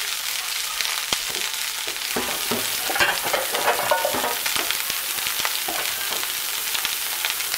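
Rice frying in hot oil in a pan on high heat, left unstirred: a steady sizzling hiss with crackling pops, a few louder ones about three and four seconds in.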